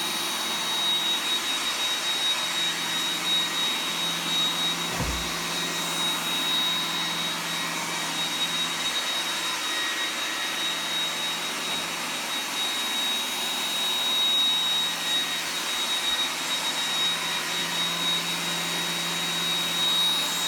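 Robot vacuum cleaner running steadily, a whirring motor-and-brush noise with a thin high whine on top. A single low thump about five seconds in.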